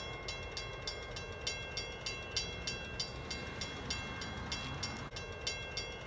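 Railroad crossing signal bell ringing steadily, about three strokes a second, while the crossing gates rise after the train has cleared.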